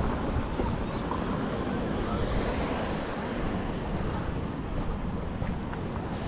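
Wind buffeting the microphone outdoors: a steady rushing noise with an uneven low rumble, no distinct events.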